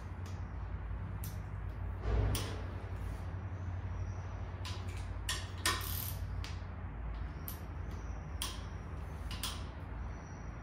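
Socket and long extension clicking and clinking on the connecting-rod bolts of a Toyota 2TR-FE engine as they are angle-tightened a further 90°. There is a louder metal rattle about two seconds in.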